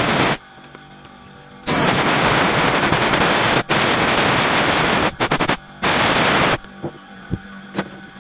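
Handheld air blower blasting caked sawdust and bar-oil gunk off a battery chainsaw's sprocket area and cover, in loud hissing blasts that start and stop abruptly. There is a short burst at the start, a long blast of about three seconds, a quick stutter of short puffs, and one more blast, with quiet music between them.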